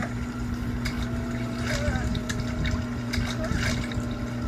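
Water gushing steadily into a flooding house, with a few short splashes.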